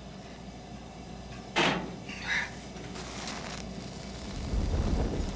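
Rope scraping and rustling as bound hands hold it to a gas water heater's pilot flame: one sharp scrape about a second and a half in and a softer one just after, with a low rumble rising near the end.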